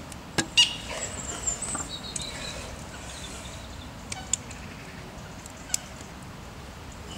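Sharp metallic clicks and taps from the bars of a jet surfboard's intake grill being worked by hand: two loud clicks within the first second, then a few lighter ones later.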